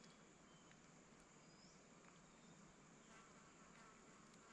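Near silence: faint outdoor bush ambience with a thin, steady, high insect buzz and a few faint ticks.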